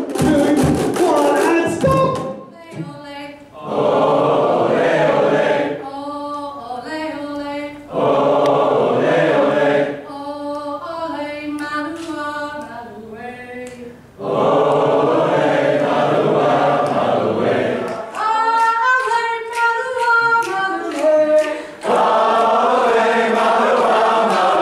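A group of adults singing together, several voices at once, the singing breaking off and starting up again several times. A few sharp knocks from struck plastic tubes in the first two seconds.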